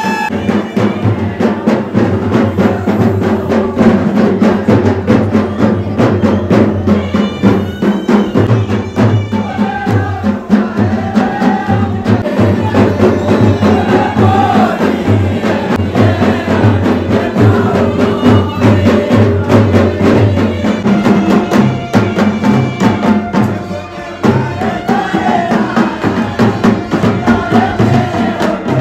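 Music with a steady, busy percussion beat under sustained low notes and a wavering melody, dipping briefly about 24 seconds in.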